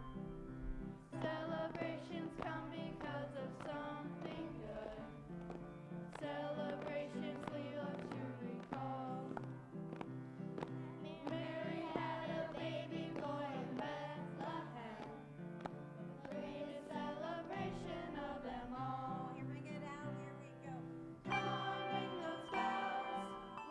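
Handbell choir playing a song, with voices singing along; the music grows louder near the end.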